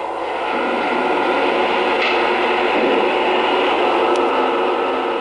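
Lionel Legacy Santa Fe Acela O-gauge model train running along three-rail track: a steady hum and hiss of its wheels and motors.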